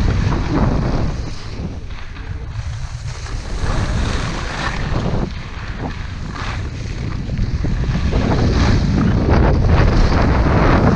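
Wind buffeting the camera's microphone while skiing downhill, over the scraping hiss of skis sliding on groomed snow. It eases off in the middle and grows louder near the end as speed picks up.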